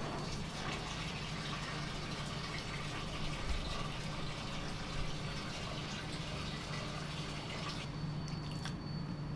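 Steady commercial-kitchen background noise: an even hiss over a low hum, with a couple of faint knocks about midway. The hiss thins out near the end.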